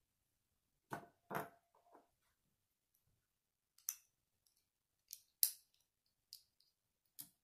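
Plastic Lego bricks being handled and snapped together: two duller knocks about a second in, then five sharp clicks over the last few seconds.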